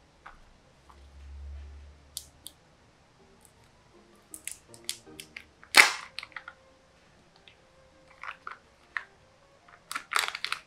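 Kinder Joy plastic toy capsule handled and pried open: scattered plastic clicks and crinkles, a single sharp snap about six seconds in, and a quick cluster of clicks near the end.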